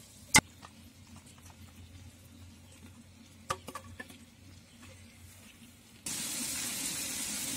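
A metal slotted spoon clicks sharply against a cooking pot, with a few lighter clicks a few seconds later. About six seconds in, a steady sizzle starts abruptly: a masala-coated fish frying in oil.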